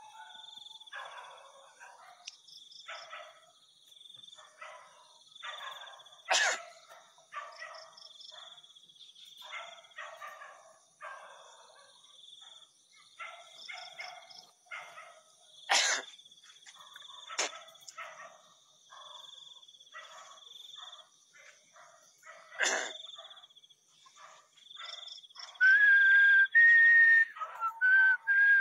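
Dogs barking over and over, many short barks, above a steady chirring of crickets. Three sharp clicks break in, and near the end someone whistles a few held notes that step up and down, the loudest sound here.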